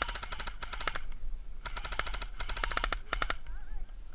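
Airsoft rifle firing full-auto bursts: a rapid rattle of shots through about the first second, then three more bursts close together, the last one short.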